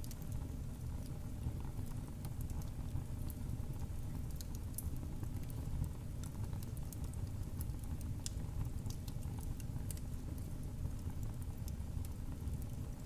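Wood fire crackling in a fireplace: scattered sharp pops and snaps over a steady low rumble of the flames.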